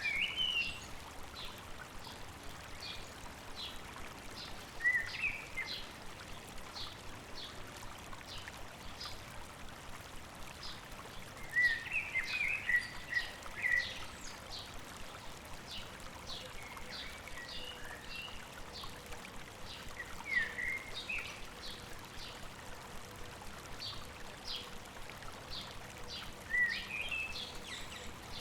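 Songbirds over a steadily rushing stream: one bird gives short high chips about twice a second, while another sings brief warbling phrases every several seconds.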